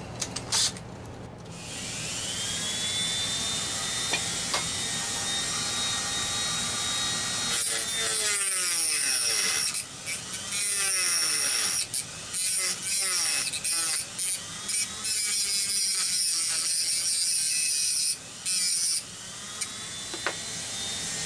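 Dremel rotary tool spinning up with a rising whine about two seconds in, then cutting a 2-56 screw flush. From about eight seconds in, the motor's pitch dips and wavers over and over as it bites under load, with brief breaks as the tool comes off the work.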